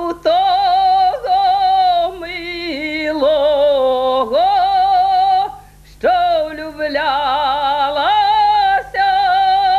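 An elderly woman singing a Ukrainian folk song solo, unaccompanied, in long drawn-out held notes with wavering vibrato and slides between pitches, pausing briefly for breath twice.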